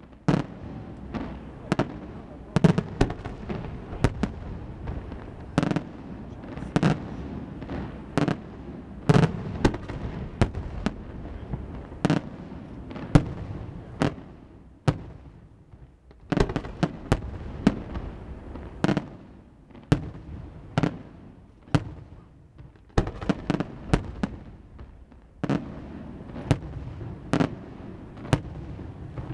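Fireworks display: a dense, irregular run of sharp bangs with rumbling reverberation between them. It eases off briefly about halfway through and again near the end.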